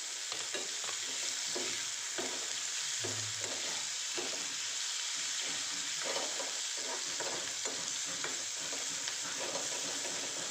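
Onions frying in hot oil with cumin and ginger-garlic paste, sizzling steadily while being stirred, with frequent short scrapes against the pan.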